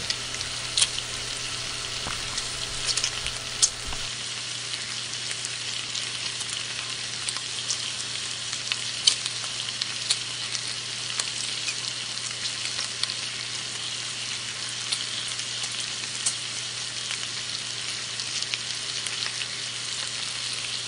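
Spinach sautéing in a hot stainless steel skillet: a steady frying sizzle with scattered crackles and pops. A steady low hum runs underneath.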